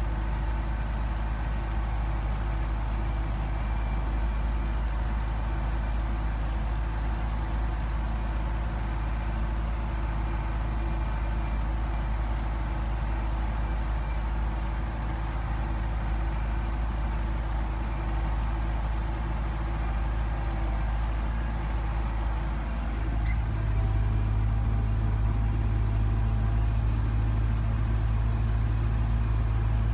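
Belarus MTZ 820 tractor's four-cylinder diesel engine running steadily under load while pulling a seven-disc plough through the soil. About three-quarters of the way through, the drone jumps a little louder and changes pitch slightly.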